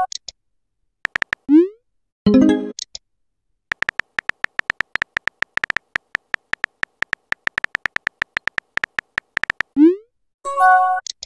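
Texting-app sound effects: a few keyboard taps, then a short rising swoop as a message is sent and a synthetic chime as a reply arrives. A long run of quick key-tap clicks follows from about 4 to 9.5 seconds, and near the end comes another swoop and chime.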